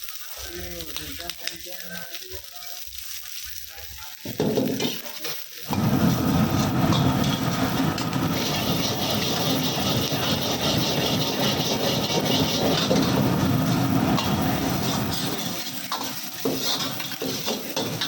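Food sizzling and frying in a hot pan while it is stirred, quiet at first, then loud and steady from about six seconds in.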